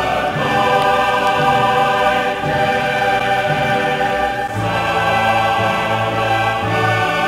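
Choral music: a choir singing long held chords over a low bass, moving to a new chord about four and a half seconds in.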